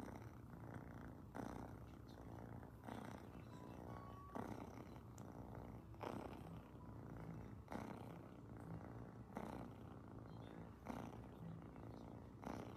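Kitten purring steadily while its head is stroked. The purr swells with each breath, about every one and a half seconds.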